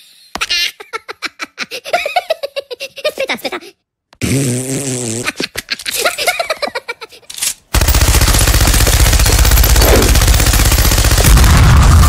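A squeaky Minion-style cartoon voice laughing and babbling in short bursts. About two-thirds of the way through, a loud machine-gun fire sound effect cuts in and goes on without a break, with very rapid shots.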